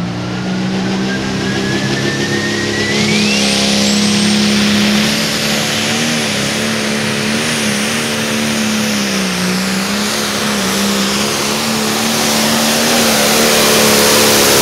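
Limited Pro Stock pulling tractor's turbocharged diesel engine at full throttle, pulling the weight-transfer sled down the track. A turbo whine climbs steeply over the first few seconds, and the engine note holds steady, then wavers and dips under load partway through.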